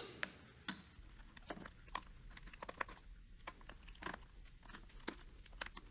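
A small T6 Torx screwdriver backing the screws out of a TI-89 graphing calculator's plastic back case: faint, irregular small clicks and ticks.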